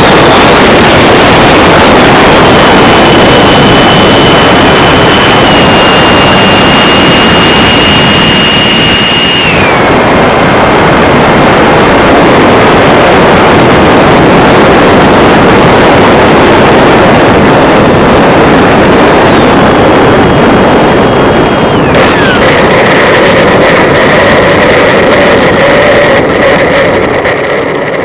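Mercury 64 mm electric ducted fan of an RC Rafale jet running in flight, heard from the onboard camera as a loud rush of air and fan noise. It carries a high whine that steps down in pitch twice, about ten seconds in and again about twenty-two seconds in. It grows quieter near the end.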